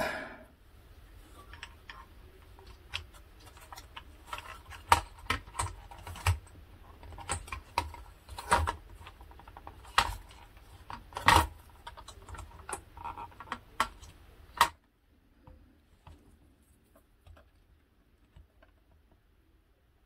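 Scattered clicks and knocks of a ZX Spectrum Next's circuit boards, ribbon cables and plastic case being handled during reassembly, the sharpest about ten and eleven seconds in. The handling stops abruptly about three quarters of the way through, leaving only faint ticks.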